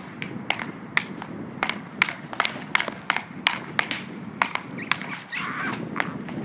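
Hockey stick and puck clacking on an asphalt driveway: a quick run of sharp clicks, about two to three a second, with a short scrape a little after five seconds.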